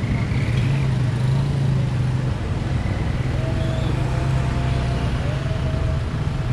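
Road traffic crossing a level crossing: vehicle engines running and tyres rolling past, with a heavy engine hum that eases a little after about two seconds.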